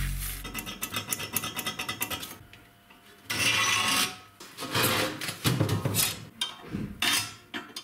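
A tape measure and a steel square scraping and rubbing on a rusty steel channel while a cut line is marked out: quick scratchy ticking at first, then several short scraping strokes.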